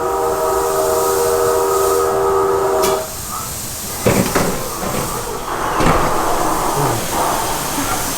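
Simulated oncoming-train effect from a simulator ride's soundtrack: a train horn sounds a steady chord of several tones for about three seconds and then cuts off. Several sudden crashing impacts and bursts of noise follow.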